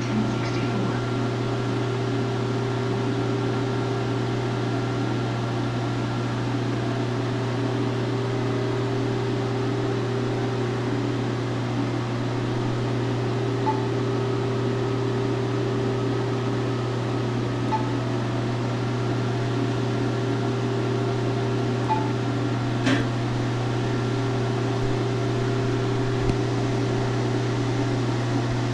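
Steady hum of a Cutera Excel laser system running, its cooling fans going while the handpiece tip cools down, with a faint high whine that comes and goes and a light click about 23 seconds in.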